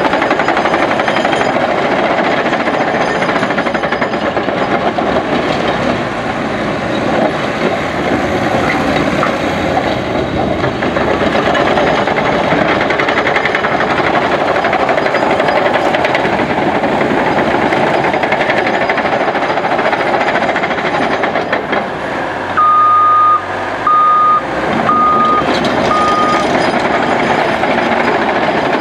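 Caterpillar D6K2 XL crawler dozer running and moving, its Cat C7.1 diesel and steel tracks making a steady clattering drone. About three-quarters of the way through, its reverse alarm beeps four times, about once a second, as it backs up.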